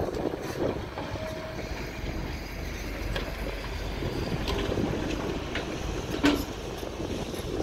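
Long-reach Kobelco excavator running and working its boom and bucket: a steady engine rumble with scattered metal clanks, the loudest a sharp clank about six seconds in.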